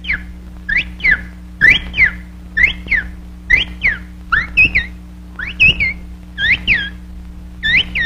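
Cartoon-soundtrack bird chirps, whistled in quick pairs about once a second, each pair a rising note then a falling one. A steady low hum from the old soundtrack runs underneath.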